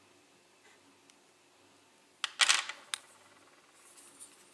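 Plastic Play-Doh toy tools being handled: a sharp click, a short scrape and another click a little past halfway, otherwise quiet.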